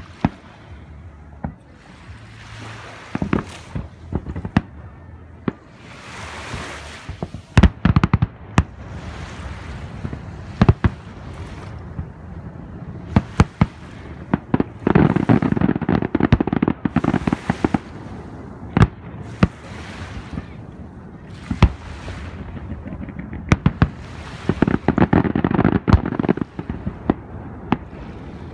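Aerial fireworks shells bursting one after another, with sharp bangs scattered throughout and denser stretches of rapid crackling about halfway through and again near the end.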